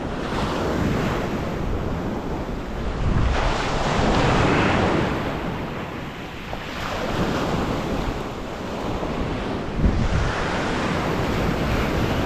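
Waves washing onto a beach, swelling and fading every few seconds, with wind rumbling on the microphone.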